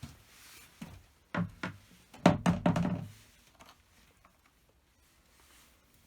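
A few separate knocks, then a quick run of heavier thunks about two to three seconds in, and after that little sound.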